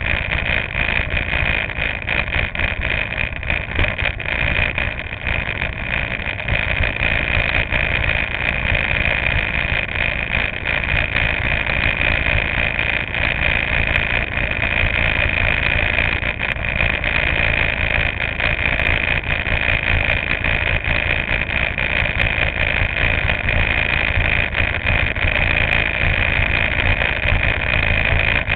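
Go-kart engine idling steadily with the kart standing still, heard through a camera mounted on the kart.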